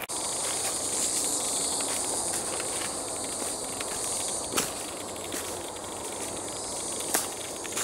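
A steady, high-pitched chorus of insects buzzing and trilling in the woodland, with two sharp clicks, one about halfway through and one near the end.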